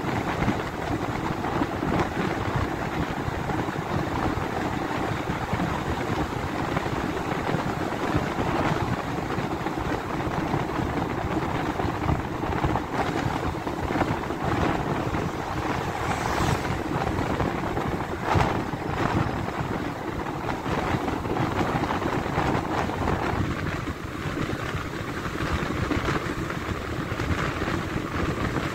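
Steady rumble of a moving vehicle with wind noise, dipping slightly about 24 seconds in.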